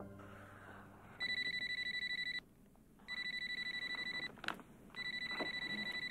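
Telephone ringing three times, each ring a fast electronic warbling trill about a second long with short pauses between. A brief click comes between the second and third rings.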